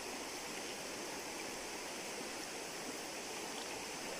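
Shallow, clear river flowing steadily over stones and past a log, a constant even rush of water.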